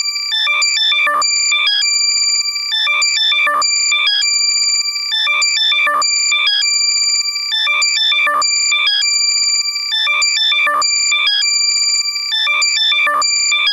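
Loud, heavily compressed synthesized alert sound made for finding lost AirPods, playing in the left channel only. Fast high-pitched beeps and chirps sit over steady high tones, in a cycle that repeats about every two and a half seconds.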